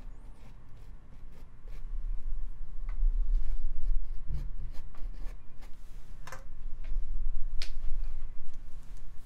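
Low rumbling and bumping on the microphones as a furry pet brushes against them, growing louder about two seconds in. Scattered small clicks and taps of a paintbrush dabbing acrylic paint onto canvas sound over it.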